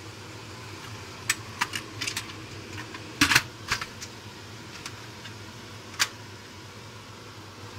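Stainless-steel pressure cooker lid being set on the pot and turned to lock: a string of sharp metal clicks and clacks, loudest about three seconds in, with a last click about six seconds in.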